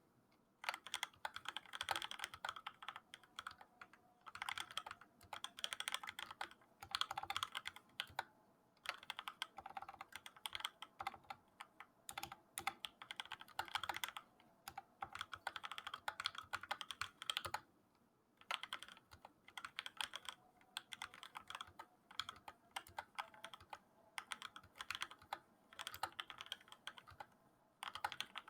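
Keychron K6 mechanical keyboard with 62 g C³ Tangerine linear switches lubed with Krytox 205G0, typed on in runs of rapid keystrokes broken by short pauses.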